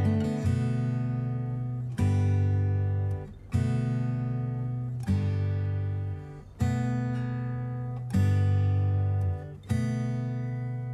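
Background music: acoustic guitar chords strummed about every one and a half seconds, each ringing out and fading before the next.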